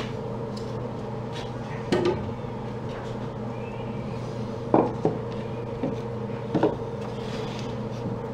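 A handful of sharp knocks and clinks of wood and metal hardware being handled while the pool table's middle support is fitted, over a steady low hum.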